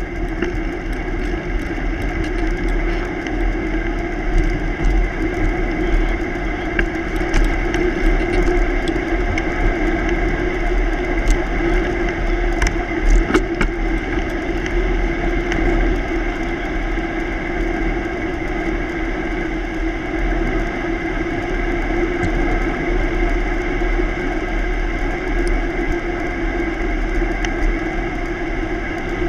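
Bicycle rolling along a road, its tyres making a steady rolling hum, with wind buffeting the bike-mounted camera's microphone and scattered small clicks and ticks.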